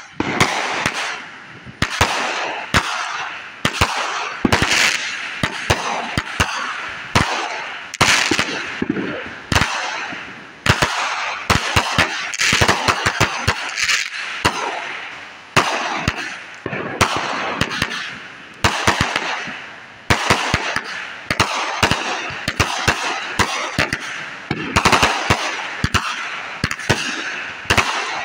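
Consumer fireworks cake firing shot after shot: a sharp bang every second or so, each followed by crackling bursts in the air.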